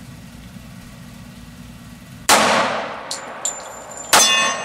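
Two shots from a Llama Minimax .45 ACP pistol, about two seconds apart, each followed by metallic ringing and small clinks. The pistol is cycling normally after being oiled, firing the last rounds in the magazine.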